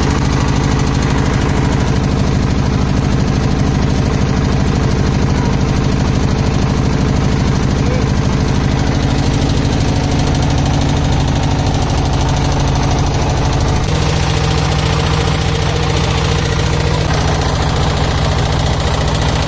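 Motor of a wooden boat running steadily at speed, with water rushing and splashing along the hull. About fourteen seconds in, the engine note changes abruptly.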